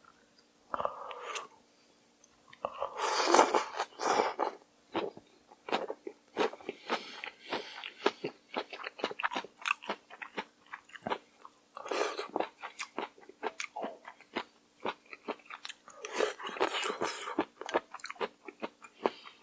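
Close-miked eating of cold raw fish soup with somen noodles: steady chewing with many small wet crunches and clicks, broken by several loud slurps of noodles and cold broth, the biggest about three seconds in.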